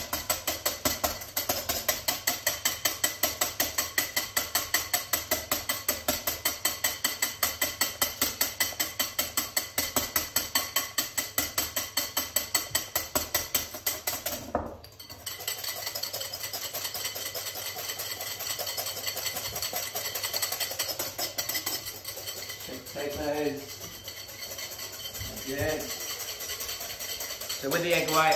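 Wire whisk beating salted egg whites in a bowl in fast, even strokes. The strokes pause briefly about halfway through and resume more softly. The whites are being whipped until fairly stiff for a light batter.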